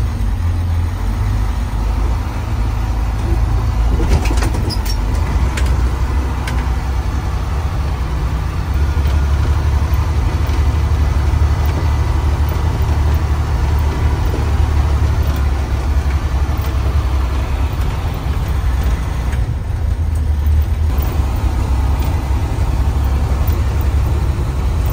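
School bus driving slowly on a gravel road, heard from inside the cab: a steady low engine and road rumble, with a few light knocks about four to five seconds in.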